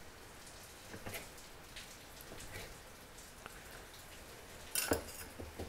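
Faint scattered ticks and taps of a knife working a salmon fillet on a plastic cutting board, with a brief louder clatter near the end.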